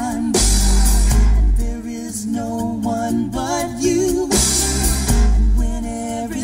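A song with sung vocals, guitar and drums playing through a car audio system, with strong deep bass notes from the JBL GT5-S12 subwoofers coming in twice.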